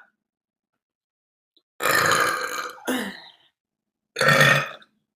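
A woman burping twice. A long, loud burp about two seconds in trails off, then a shorter one comes about four seconds in, with silence before and between them.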